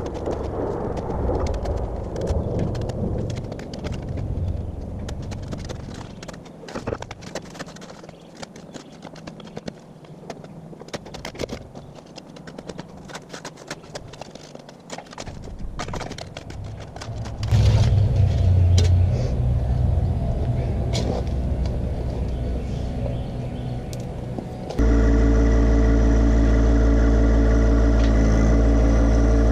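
A spade chopping and scraping into soil and roots, many short sharp strikes. About 25 seconds in, a John Deere 1025R compact tractor's three-cylinder diesel engine starts up abruptly and runs steadily while its pallet forks dig in.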